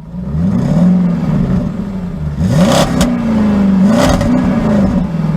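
Rally car engine revving hard, its pitch rising and falling with throttle and gear changes, with one sharp crack about three seconds in.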